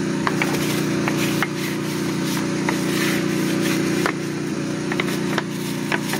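An engine running steadily in the background, with scrubbing and scattered light clicks as a soapy wash mitt is rubbed over a semi truck's wheel hub, studs and lug nuts.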